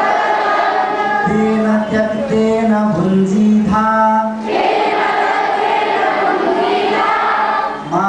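A large group of school children, boys and girls, chanting a Hindu devotional text together in unison, sung on a simple melody with held notes and short breaks between lines.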